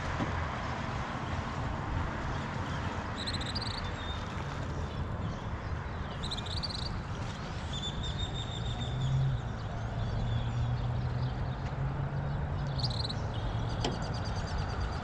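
Steady outdoor noise with birds chirping several times, short high calls spread through it, and a low steady hum in the middle.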